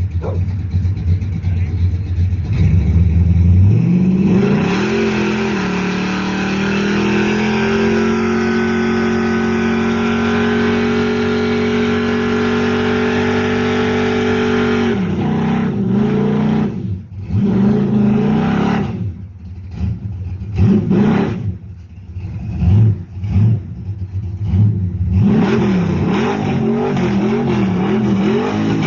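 A 383 stroker V8 through Flowmaster Super 10 mufflers and 3-inch pipes dumped at the rear axle, doing a burnout. It idles, is revved up about four seconds in and held at high rpm for about ten seconds, then drops back to a series of sharp throttle blips and an uneven, loping idle.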